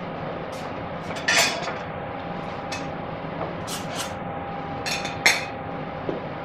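Dishes and utensils clinking and clattering several times, loudest about a second and a half in and again just after five seconds, over a steady background hum.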